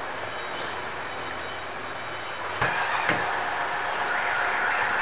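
A long wooden board set down on a work table, two knocks about half a second apart a little past halfway, over a steady background hiss.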